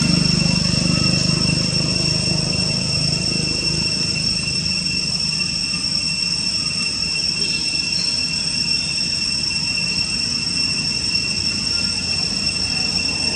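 Steady high-pitched insect drone that holds one pitch without a break, over a low background rumble.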